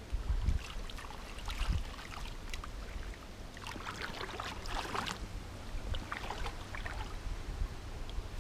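Water splashing and sloshing in three short spells, over a low rumble of wind on the microphone.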